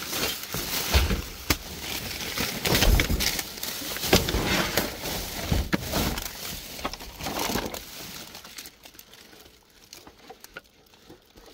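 Thin plastic bag rustling and crinkling as it is lifted and pulled open, with hard plastic toys knocking together inside. It dies down after about eight seconds to a few light knocks.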